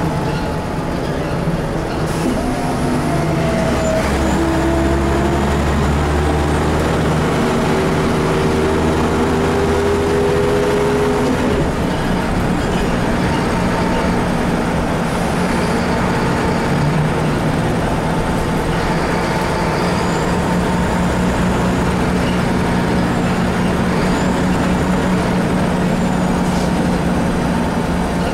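Scania DSC9 9-litre six-cylinder turbo diesel of a Scania L94IB bus, heard from inside the cabin, driving the bus through a ZF five-speed automatic gearbox. Its pitch rises steadily for about the first ten seconds. It drops about eleven seconds in as the gearbox changes up, then holds steady while the bus cruises.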